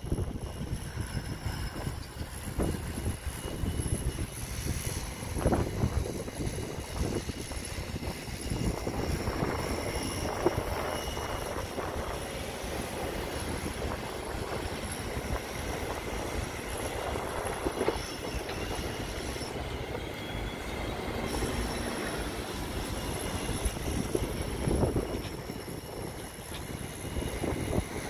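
City street noise from road traffic: a steady wash of passing vehicles over an uneven low rumble, busier in the middle.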